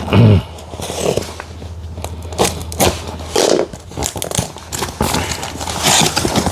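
A cardboard shipping box being opened and its packaging handled: irregular scrapes, rustles and crackles.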